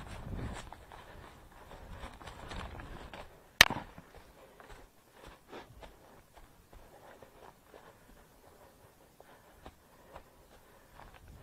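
Footsteps of a runner through forest undergrowth, dry twigs and leaves crackling underfoot. About three and a half seconds in there is one sharp, loud crack, and after it the steps are softer and sparser.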